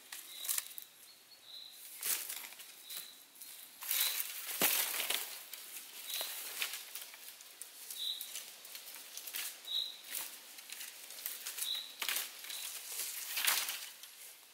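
Dry sticks and branches rustling, scraping and knocking together as they are handled and leaned onto a stick lean-to shelter frame, with footsteps in dry leaf litter. A short high bird chirp repeats every second or two.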